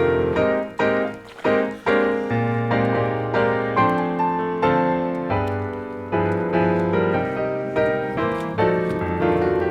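Background piano music, a steady run of notes over a held bass.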